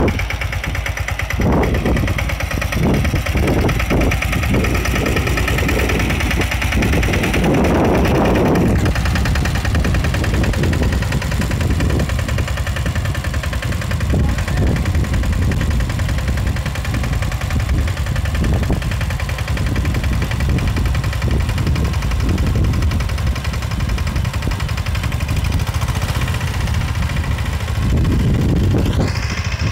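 Motorcycle engine of a motorcycle-converted farm tractor running steadily under load while pulling a cultivator through field soil. It surges louder briefly about a third of the way in, and a rising whine is heard just before the end.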